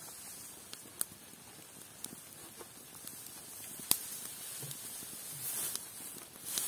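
Knife cutting on a wooden cutting board: a few scattered sharp taps, the sharpest about four seconds in, with a soft rustle near the end.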